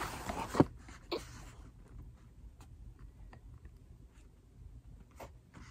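A greeting card being handled, with a brief papery rustle and a sharp tap in the first second or so. Then faint room noise with a few small ticks.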